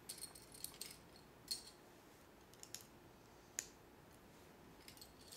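Faint clicks and light rattles of small plastic Lego pieces being handled and fitted together: a cluster in the first second, single sharp clicks about a second and a half and three and a half seconds in, and a few more near the end.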